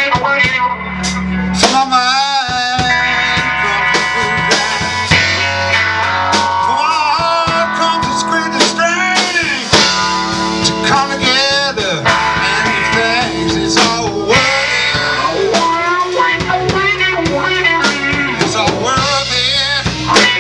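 Live blues band playing: a Stratocaster-style electric guitar lead with wavering, bent notes over electric bass and a drum kit.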